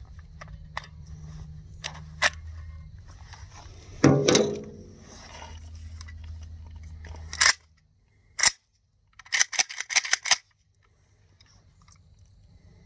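Metal clicks and clacks of an AK-pattern gun's action and magazine being worked by hand: scattered light clicks, one loud clack about four seconds in, a sharp click, then a quick run of clicks a couple of seconds later. The handling is to clear a feed malfunction in which rounds won't come out of the magazine, which the owner blames on a bad magazine.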